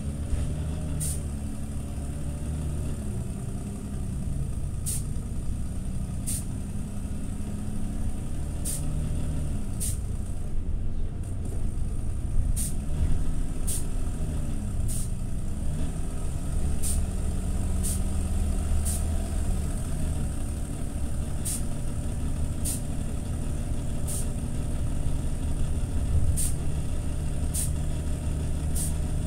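TCV Karat city bus engine heard from inside the cabin, droning under way, its pitch rising and falling as the bus changes speed; the uploader calls it an extremely rough, faulty engine sound. Sharp high ticks come every second or two over it.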